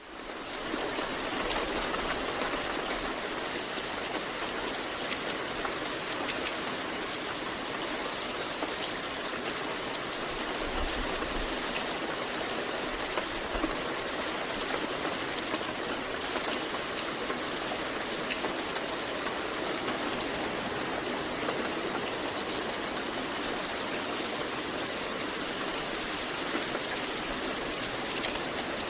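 Steady rain falling, an even hiss with faint scattered drop ticks, fading in over the first second.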